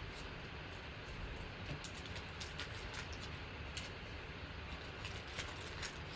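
Steady low hum with scattered light clicks and ticks.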